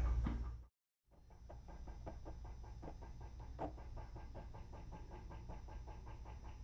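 Small winding motor ticking in faint, steady, rapid pulses as it slowly reels in the string that drags a harnessed rock over river stones, with one louder click about three and a half seconds in. The pulses start after a louder sound fades out and a moment of silence about a second in.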